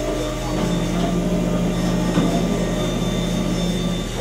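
Steady drone of running machinery: a continuous mechanical hum with several held tones over a noise bed. A low tone grows stronger about half a second in.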